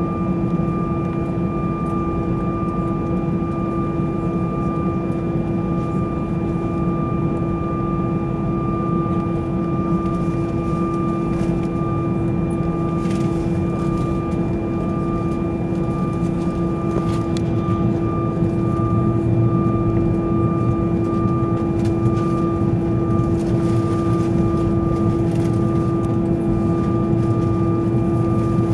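Airbus A320 cabin noise while taxiing after landing: a steady mechanical drone with several steady whine tones over a low rumble. The rumble grows slightly louder about two-thirds of the way through.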